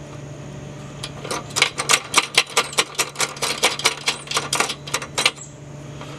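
A quick, irregular run of small metal clicks, about five a second, as a control cable's threaded end and its jam nuts are worked by hand into a steel bracket. The clicks start about a second in and stop about a second before the end.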